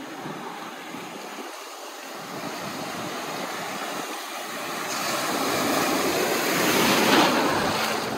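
Ocean surf and water washing around a phone held at the waterline, with wind on the microphone. A rush of breaking whitewater grows louder from about five seconds in and is loudest near seven seconds.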